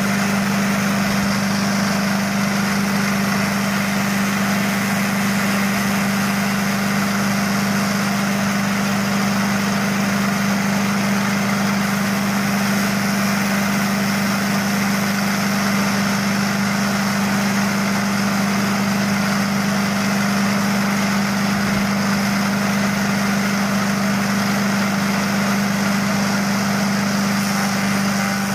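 Craftsman 5 hp chipper shredder's small engine running steadily at constant speed, a continuous even hum with no rise or fall in pitch.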